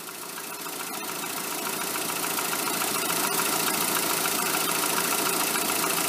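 Rover 45 engine idling steadily in the open engine bay, fading up over the first couple of seconds and then holding level.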